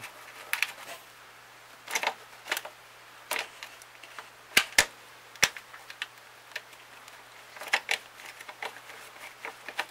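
Irregular metallic clicks and knocks of hand tools working the bolts that fasten a clutch fluid reservoir to the car body. The sharpest knocks come in a cluster about halfway through.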